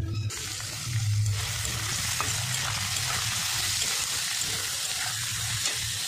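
Chopped onion, potato sticks and green chilli sizzling as they fry in a pan, stirred with a metal spatula. The sizzle cuts in abruptly just after the start and holds steady.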